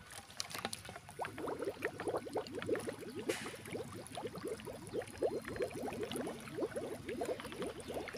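Water being poured into a bottle, gurgling in quick bubbly pulses that start about a second in and keep going.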